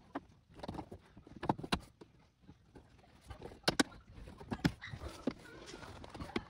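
Hands working a car's plastic pillar trim and rubber door seal back into place: scattered light clicks, taps and knocks at an uneven pace, with a few sharper snaps near the middle.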